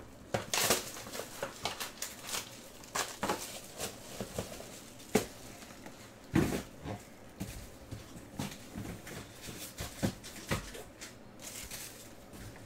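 Foil trading-card pack wrappers crinkling and rustling as they are handled, in irregular bursts with scattered sharp crackles and taps.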